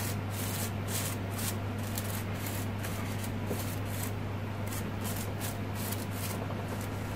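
Crinkled paper petals of a handmade paper chrysanthemum rustling and scratching in soft, irregular strokes as fingers spread and fluff them, over a steady low hum.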